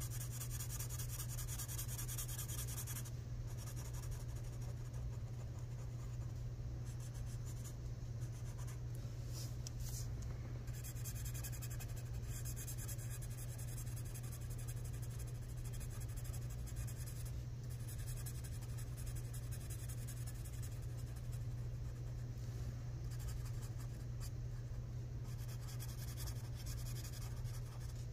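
Red permanent marker scratching across paper in short back-and-forth strokes as it colours in a shape, louder in spells near the start and near the end, over a steady low hum.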